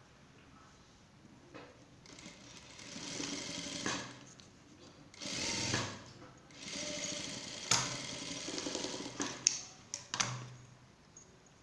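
Industrial single-needle lockstitch sewing machine stitching in three short runs, starting and stopping as the fabric is guided, with a few sharp clicks near the end.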